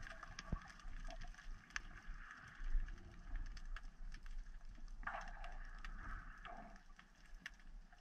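Underwater ambience heard through a diver's camera housing: a low rumble of moving water with scattered sharp clicks and crackles.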